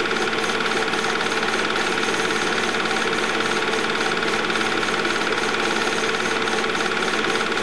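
Film projector running: a loud, steady mechanical clatter with a constant whine, picked up while the silent home movie was transferred.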